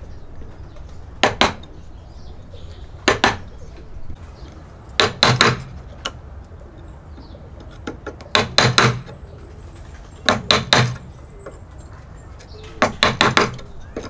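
Mallet striking a chisel as a mortise is chopped into a timber beam: short, sharp knocks in quick groups of two to four, with a group about every two seconds.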